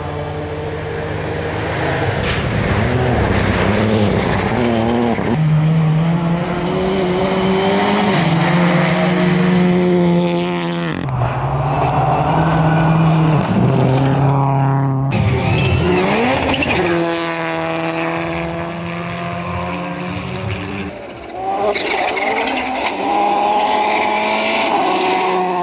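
Rally cars at full throttle on a gravel stage: engines revving high, with the pitch climbing and dropping through gear changes and lifts. The sound jumps abruptly several times as it passes from one car to another.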